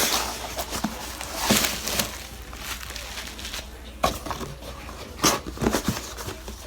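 A shipping package being opened by hand on a table: scattered rustling and scraping of the packaging with several sharp knocks, the loudest about four and five seconds in.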